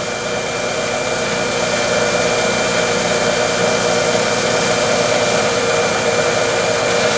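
Wood lathe running while a polishing pad with EEE compound buffs the back of the spinning turned piece: a steady whirring hiss that swells slightly in the first couple of seconds.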